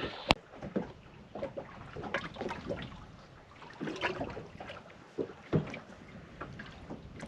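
Water and wind noise around a small fishing boat drifting at sea, with scattered small clicks and knocks on board: a sharp click just after the start and a louder knock about five and a half seconds in.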